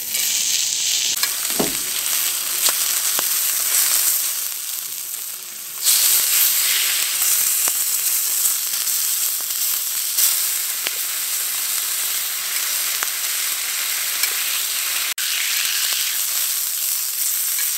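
Food sizzling and frying in hot fat on a grill, a steady hiss with scattered small pops and crackles. The sizzle eases off a little around five seconds in, then comes back louder.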